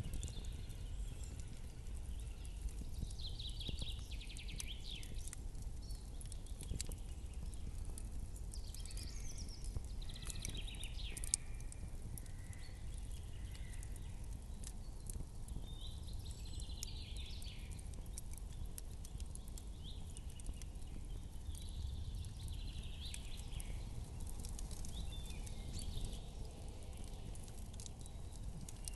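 Campfire crackling, with many small pops over a steady low rumble. Every few seconds a soft hiss or rustle rises over it.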